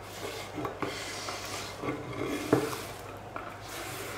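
Diced vegetables being pushed by hand off a wooden cutting board into a glass bowl of batter: a soft, continuous scraping rustle of hand and pieces sliding over the wood, with a few light knocks.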